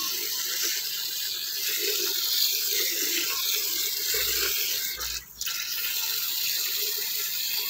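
Steady rushing noise that dips briefly about five seconds in.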